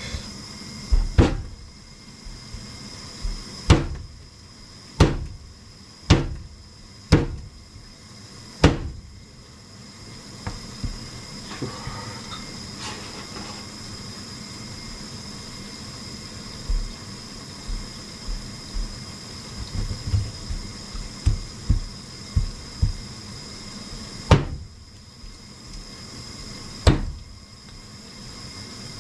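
Sharp knocks of a kitchen knife striking a cutting board while a soft-shelled turtle is cut apart at its joints, coming irregularly a second or more apart. In the middle there is a run of softer, quicker thumps.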